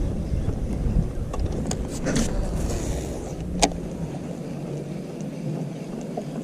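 Strong wind buffeting the microphone with a low rumble, broken by a short hiss about two seconds in and a sharp click a moment later; the rumble eases off in the second half.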